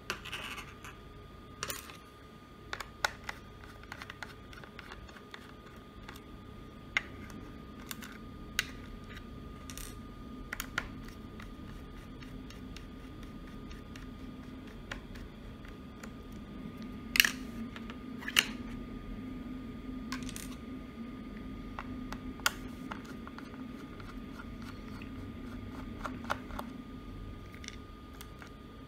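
Scattered small clicks and taps of a screwdriver and fingers working the screws and metal bracket of a laptop's 2.5-inch SATA drive as it is unscrewed and freed, a few louder clicks past the middle, over a low steady hum.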